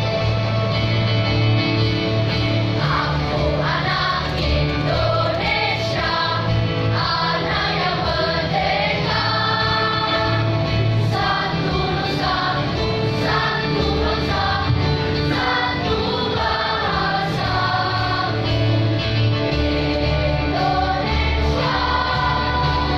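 Children's school choir singing a medley of Indonesian songs over instrumental accompaniment, the voices coming in about three seconds in.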